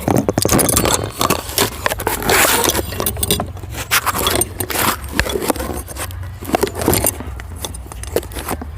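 Metal clinking, jangling and scraping of hand tools and engine parts being handled, with many irregular sharp clicks and knocks.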